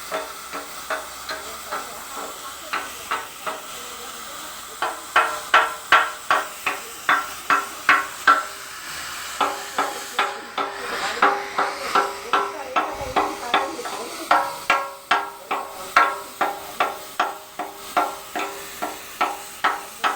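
Metal being struck over and over at a steady beat of about two strikes a second, each blow ringing briefly, over a steady hiss. The blows grow louder a few seconds in.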